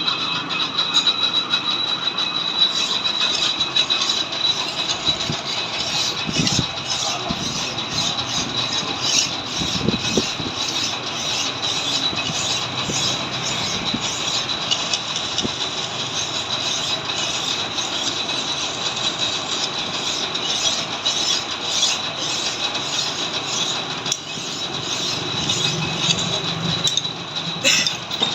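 Lathe running and cutting metal: a steady high whine with a regular ticking over it.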